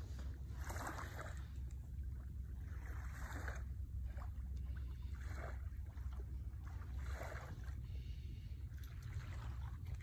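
Wind buffeting the phone's microphone as a steady low rumble, with a soft swish about every two seconds.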